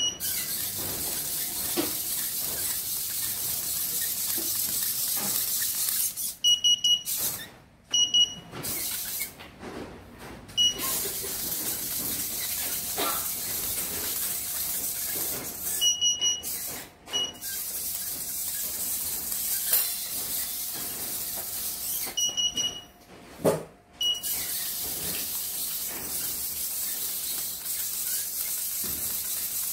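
Arduino quadruped spider robot walking on tile: a steady high hiss that cuts out several times, with short paired electronic beeps in the breaks and faint ticks underneath.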